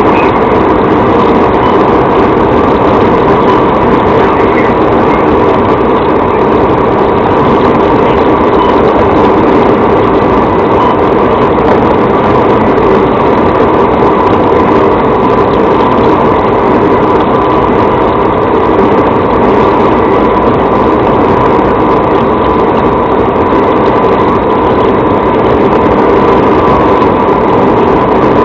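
Patrol vehicle at about 107 mph, heard from inside the cabin: a loud, steady mix of engine, tyre and wind noise with a steady tone running through it.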